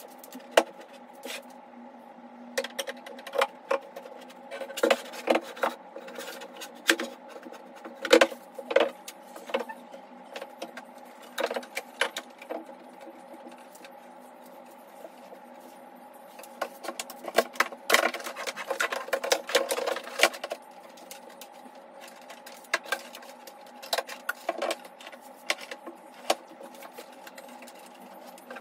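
Irregular clicks, knocks and clatter of a computer monitor and desk hardware being handled and fitted into place, with a dense run of knocks about two-thirds of the way through, over a steady low hum.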